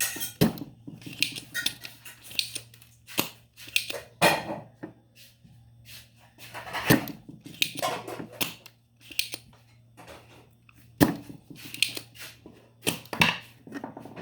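Spring-loaded desoldering pump snapping as it is fired, several sharp clicks at uneven intervals, with scraping and tapping of tools on a microwave's circuit board while desoldering the buzzer.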